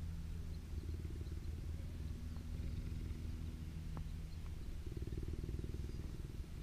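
Cheetah purring steadily: a continuous low rumble with a fast flutter, which changes character about five seconds in.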